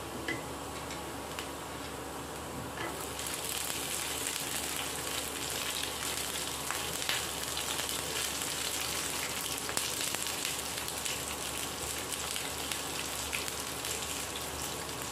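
Chopped garlic and ginger sizzling in hot oil in a nonstick frying pan. About three seconds in, chopped onion goes into the pan and the sizzle turns brighter and louder. There are a few light knocks of a wooden spatula against the pan.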